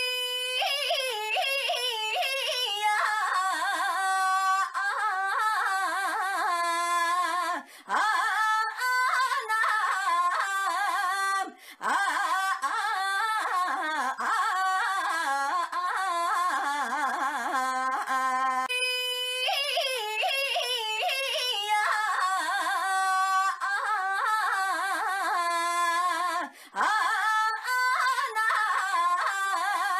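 A woman's high-pitched voice crying "Ainya" in a long, wavering, drawn-out call. The call repeats over and over, with only a few brief breaks.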